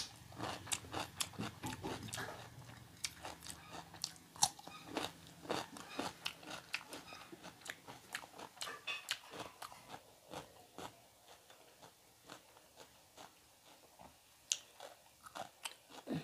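Crunching bites and chewing of a raw cucumber stick, close to the microphone. The crunches come thick and fast for the first several seconds, then thin out to scattered clicks.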